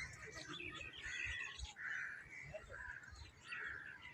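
Faint crows cawing with other birds calling, a run of short calls one after another over a low rumble.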